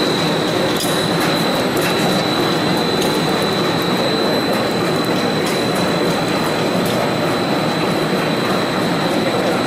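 Single-screw snack extruder and pellet cutter running steadily, cutting extruded dough into small square snack pellets. A constant high whine sits over the even machine noise, with scattered light ticks.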